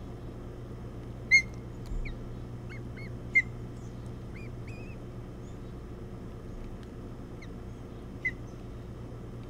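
Ospreys at the nest giving short, sharp chirps during a feeding. Three louder chirps come about a second in, a few seconds in and near the end, with fainter rising peeps between them, over a steady low hum.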